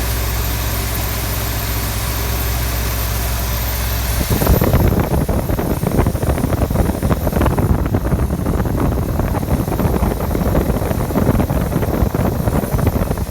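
A 1972 Lincoln Mark IV's 460 big-block V8, fitted with an Autolite 4300 carburetor and dual exhaust, idling smoothly. About four seconds in the sound turns louder and choppier, and stays so until just before the end.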